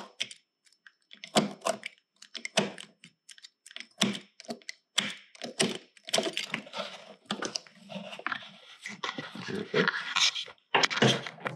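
Electrical tape on a snowmobile wiring harness being cut and picked apart with a small hand tool: irregular clicks and snips, with wires and plastic connectors rustling and tapping, the rustling growing denser about halfway through.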